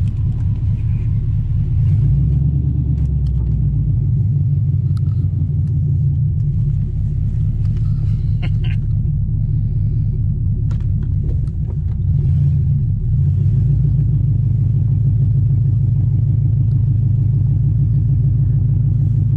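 LS V8 engine of a swapped Camaro running under way, heard from inside the cabin as a steady low rumble. It dips briefly about eleven seconds in, then runs a little louder.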